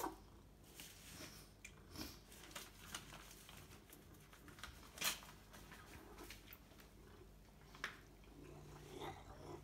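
Maine Coon cat chewing and biting at catnip: faint, irregular crunching and rustling, broken by a few sharper clicks, the loudest about halfway through.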